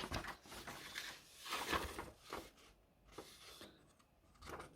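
Soft paper rustling from a K-pop album's printed inserts being handled, in several brief bursts.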